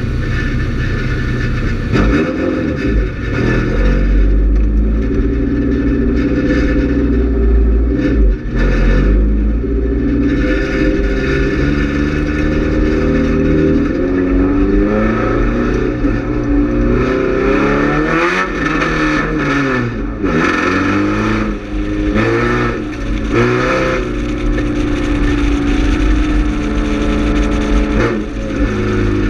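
GM Quad 4 inline-four race car engine at racing speed, its pitch rising and falling again and again as it lifts and accelerates around a short oval, with several quick dips and climbs in revs about two-thirds of the way through. A heavy low rumble runs under it.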